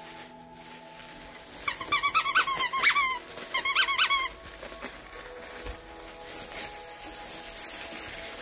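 Rapid high-pitched squeaking from five-week-old puppies at play, in two bursts: the first starts about two seconds in and lasts about a second and a half; after a short pause a shorter one follows.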